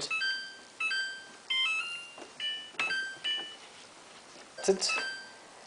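Samsung WF8804RPA washing machine's control panel beeping as the programme dial is turned from cycle to cycle. About six short electronic chime beeps come in quick succession, some stepping in pitch, then two more short beeps with clicks near the end.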